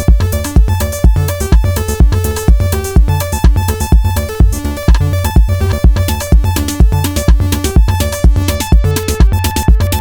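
Techno-style electronic jam: a Roland TR-8 drum machine plays a steady kick about twice a second with hi-hats. Over it run sequenced synth lines from a Behringer TD-3-MO bass synth and Arturia Minibrute 2S synths.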